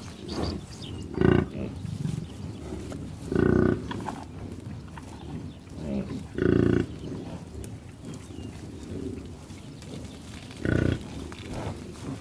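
A large animal giving four short, loud calls a few seconds apart.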